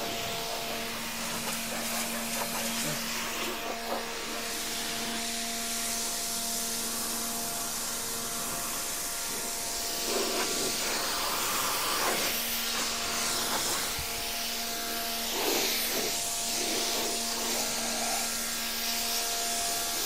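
1400-watt INGCO electric pressure washer running: its motor-driven pump hums steadily under the hiss of the high-pressure water jet spraying onto a car's body. The spray noise grows louder and more uneven about halfway through.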